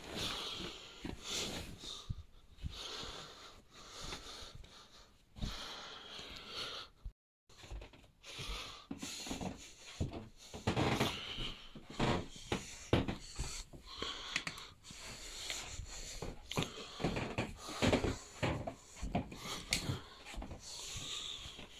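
Handling noise from a phone being moved about: irregular rustling, fabric brushing over the microphone, and knocks, with the sound cutting out for a moment about seven seconds in.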